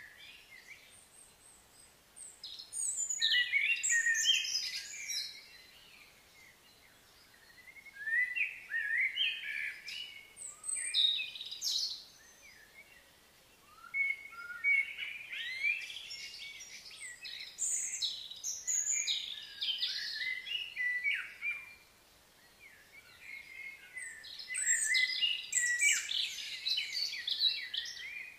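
Songbirds chirping and singing in quick runs of high notes, coming in four bouts of a few seconds each with short lulls between.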